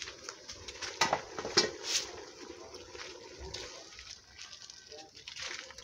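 Aluminium pot lid knocking and clinking as it is lifted off the cooking pot, with a few sharp knocks about one to two seconds in. Near the end, a blended peanut mixture is poured from a plastic jug into the hot pot.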